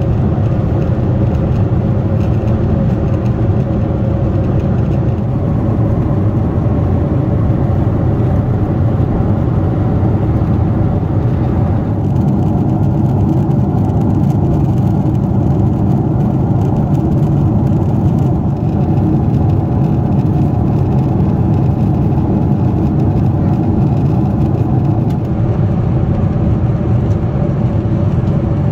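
Cabin noise aboard a Boeing 747-8i in flight: the steady rush of its four GEnx engines and the airflow, with a steady hum running through it.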